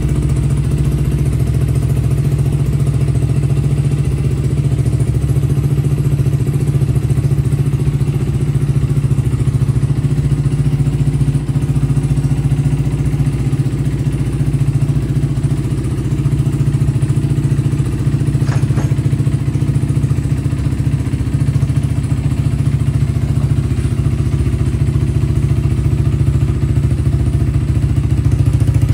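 A 2014 Yamaha YZF-R125's single-cylinder four-stroke engine idling steadily through an aftermarket Blackwidow exhaust with its baffle fitted.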